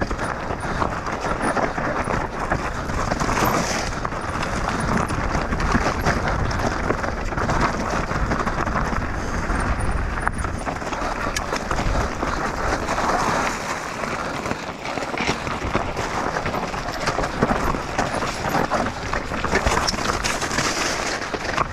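Mountain bike descending at speed, heard from a GoPro on the rider: a steady rush of wind and tyre noise on the trail, with constant rattling and clattering from the bike over rough ground.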